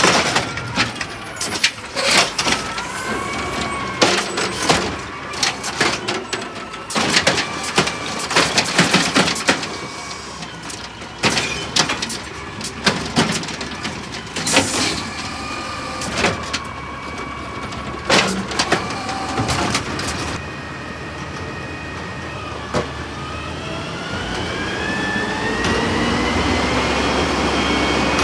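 Burrtec Autocar automated side-loader garbage truck, powered by natural gas, working its arm: hydraulic whine rising and falling as it grabs, lifts and empties a plastic trash cart, with many loud bangs of the cart against the hopper during the first twenty seconds. Near the end a Peterbilt 320 front-loader garbage truck lifts a dumpster, with a steady hydraulic whine and engine sound that rise slowly in pitch.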